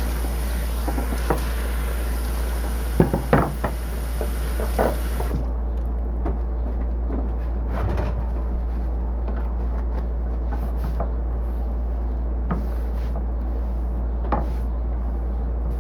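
Kitchen prep sounds: a few scattered knocks and clatters of a knife, cutting board and utensils over a steady low hum. A high hiss stops about five seconds in.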